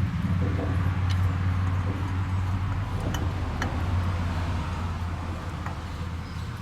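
A steady low mechanical hum, like a motor running, with a few sharp light metallic clinks of hand tools working on the tractor's rear axle and brake hub.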